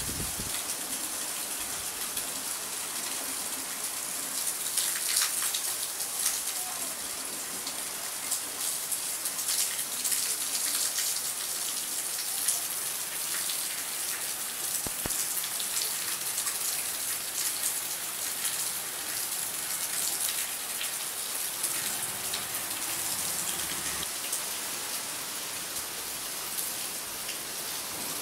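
Heavy rain falling steadily: a dense hiss of drops, with scattered sharper drop hits standing out now and then.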